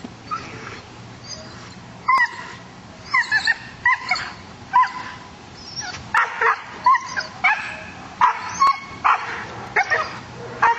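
Malinois-cross dog barking in a run of about fifteen short, loud barks, starting about two seconds in.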